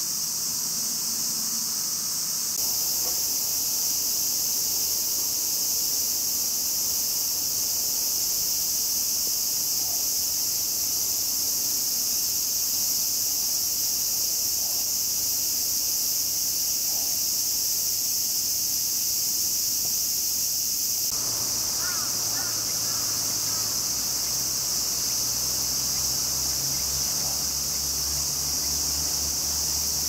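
Steady, high-pitched shrilling chorus of insects, with a few faint chirps about two-thirds of the way through.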